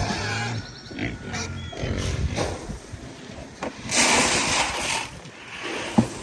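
Pigs grunting irregularly, with a sharp knock near the end.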